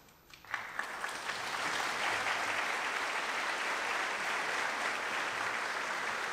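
Concert audience applauding, starting about half a second in and building to steady clapping.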